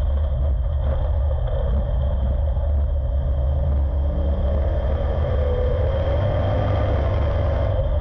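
Street stock race car's V8 engine under racing load, heard from inside the cockpit. The engine note drops as the car slows into a turn a little past the middle and rises again as it accelerates out.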